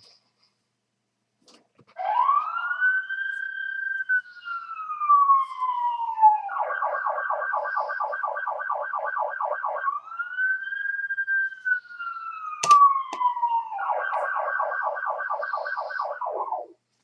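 Police siren sound effect, set off by the keyboard's brightness button: a wail that rises and then slowly falls, then a fast yelp of about five pulses a second, then the wail and yelp once more before it cuts off near the end. A single sharp click sounds partway through the second wail.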